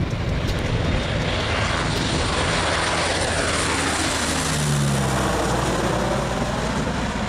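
Convair 580 airtanker's twin Allison turboprop engines and propellers passing low overhead, loud and steady, with the engine pitch falling as the plane goes by.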